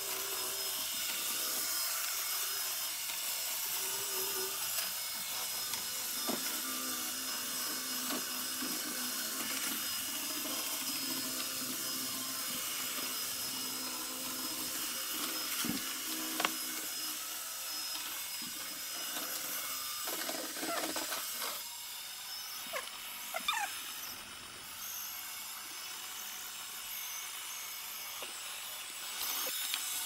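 Roomba robot vacuum running in cleaning mode: a steady whir of its vacuum and brush motors with a high hiss and a pitch that shifts now and then, broken by a few sharp clicks and knocks, two of them close together about two-thirds of the way through.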